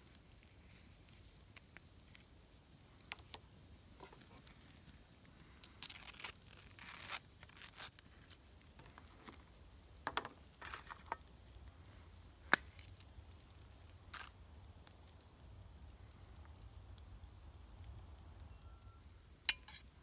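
A table knife scraping cream cheese from a plastic cup and spreading it on a toasted bagel: scattered soft scrapes and small clicks, with a sharp tap a little past halfway and another near the end.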